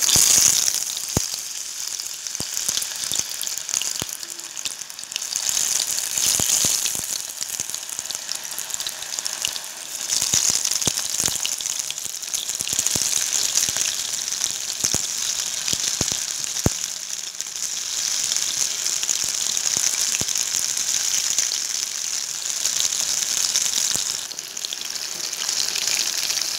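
Batter-coated anchovies deep-frying in hot oil: a steady sizzle with scattered sharp pops and crackles, setting in suddenly at the start.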